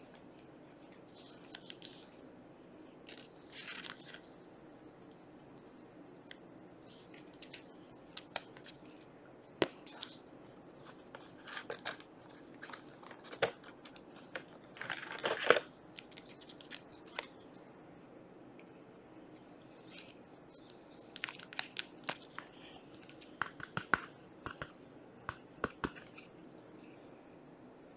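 Trading cards and plastic card holders being handled: scattered light clicks, scrapes and soft plastic rustles, with one louder rustle about halfway through and a run of clicks later on. The card is being slipped into a sleeve and a rigid plastic top loader.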